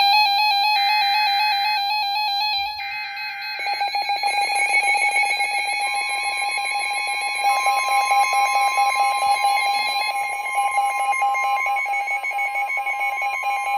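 NOAA Weather Radio emergency alert sounding: the screechy digital data bursts of the alert header over the first few seconds, under a weather alert radio's rapid pulsing alarm beep, which gets louder about four seconds in. A steady long warning alarm tone joins about six seconds in, signalling that a severe weather warning is about to be read.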